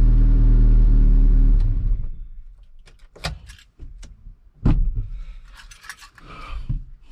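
Honda D-series four-cylinder engine running at a steady speed, then shut off and dying away about two seconds in. A scattering of sharp clicks and knocks follows.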